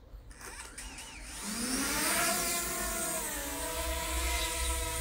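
A DJI Mavic Mini drone's propellers spin up. A rising whine starts about a second and a half in and settles into a steady hum of several tones.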